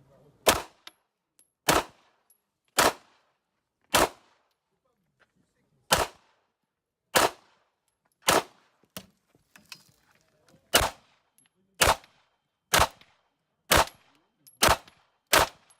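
Handgun fired in single shots, about thirteen in all, mostly a second or so apart, with two longer pauses in the string.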